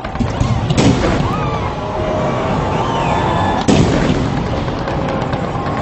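Large fireworks display: a continuous rumble of shell bursts and crackling, with two especially loud booms, about one second and four seconds in.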